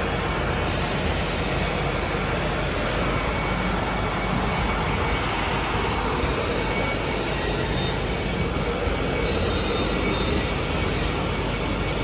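Continuous rotary-drum carbonization furnace plant running: a steady, even mechanical rumble with a low hum and faint high, steady whines.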